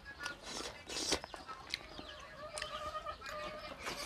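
A hen clucking, with one long drawn-out call in the middle, the call of a hen laying an egg. Close eating sounds run through it: clicks of chewing and of fingers on steel plates.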